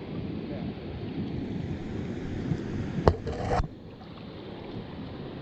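Outdoor wind and water noise, with wind buffeting the microphone. About three seconds in there is a sharp click, then a brief hiss that cuts off abruptly.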